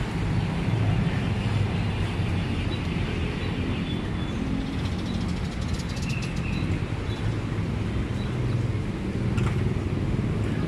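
Outdoor street ambience: a steady low rumble of road traffic, with faint voices in the background.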